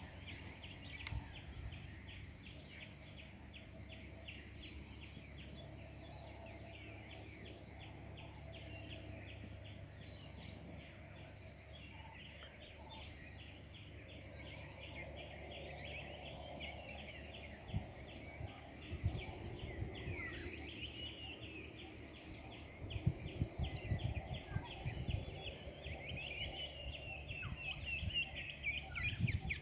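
Outdoor ambience of insects and birds: a steady high insect hum with a fast ticking insect chirr, and birds calling in short rising and falling chirps in the second half. A few low rumbling thumps of wind on the microphone come near the end.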